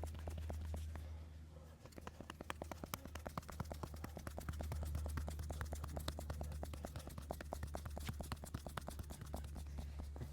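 Percussive hand massage: a fast, rhythmic run of slaps and taps of hands on the body, several a second, with a short lull about two seconds in. A steady low hum runs underneath.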